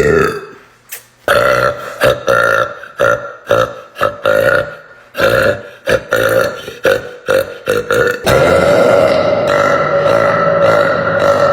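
A young woman burping: a quick run of about a dozen short, separate burps, then one long unbroken sound from about eight seconds in.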